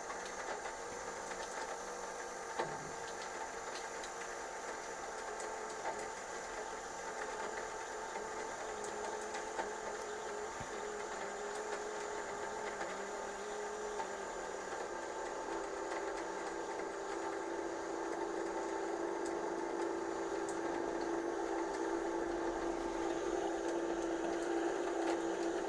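Sewing machine's motor running steadily to drive the bobbin winder, winding thread from a large cone onto a bobbin. The hum drops a little in pitch and grows louder about halfway through.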